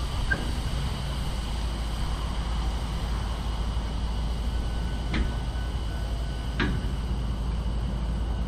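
Diesel freight train sound: a steady low rumble with a steady high whine, and two sharp knocks about a second and a half apart just past the middle.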